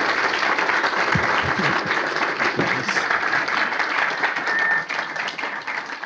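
Lecture audience applauding, a dense patter of many hands clapping that thins a little near the end.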